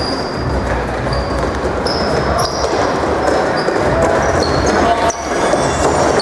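Box lacrosse play: shoes squeaking sharply on the hard floor and sticks and ball knocking, over a steady din of players' voices.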